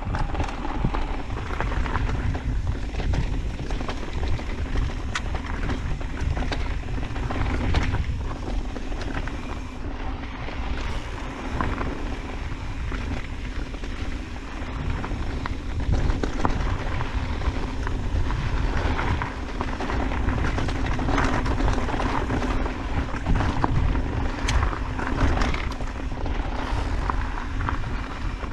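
Orbea Wild FS electric mountain bike riding over rocky dirt singletrack: wind rumbling on the microphone, tyres crunching over gravel, and many scattered clicks and rattles from stones and the bike's parts.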